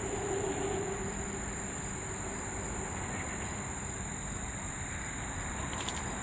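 Steady high-pitched insect drone over a constant low background rush.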